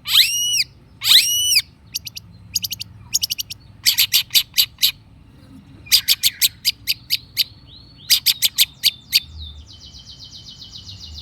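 Long-tailed shrike singing: two rising-and-falling whistled calls, then several bursts of sharp, rapid chattering notes, ending in a buzzing trill.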